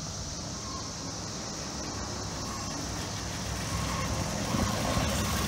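CSX hi-rail truck, a Ford Super Duty utility truck on rail guide wheels, running along the track and coming closer, its engine and wheel rumble growing steadily louder. A steady high cicada drone carries on underneath.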